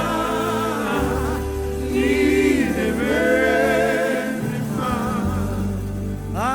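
Live gospel praise music: a band with held bass notes under sung, wavering vocal lines, without clear words.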